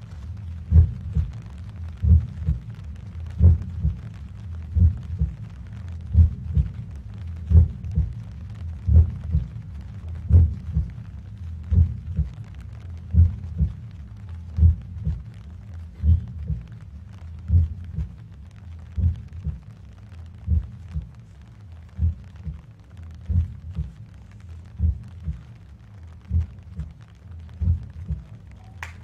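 A slow, deep, steady pulse of thumps, about one every second and a half, from the dance piece's soundtrack, easing a little in the second half. Applause breaks in right at the very end.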